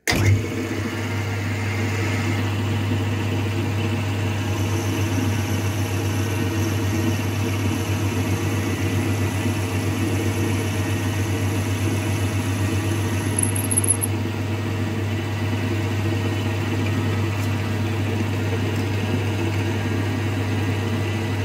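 Small metalworking lathe starting up suddenly and then running steadily with a loud motor and gear hum while it turns a steel crank pin. A short high-pitched squeal about two-thirds of the way in.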